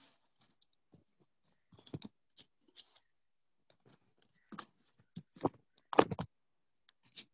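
Handling noise at the microphone: a string of short clicks, knocks and rustles as the camera device is moved and set in place, the loudest knock about six seconds in.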